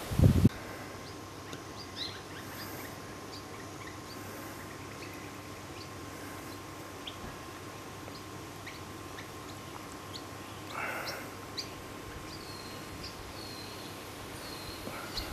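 Yellow-throated miners calling: short high chirps scattered throughout, one harsher, noisier call about eleven seconds in, and a run of quick chirps near the end. A low thump at the very start.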